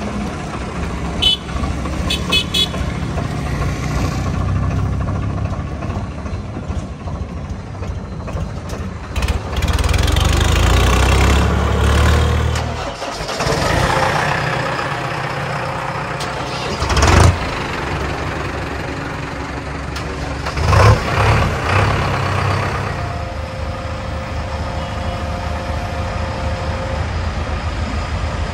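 Heavy diesel engines of tractors and JCB 3DX backhoe loaders running, growing to a louder low rumble about ten seconds in. A few sharp knocks come a little past the middle.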